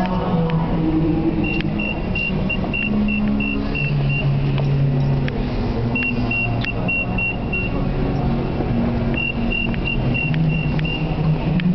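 Three runs of short, high electronic beeps, each a quick string of six to eight, over the steady low rumble and hum of a Tube station.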